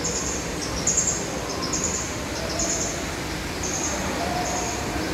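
A bird chirping over and over: short, high chirps about once a second over a steady rushing background noise.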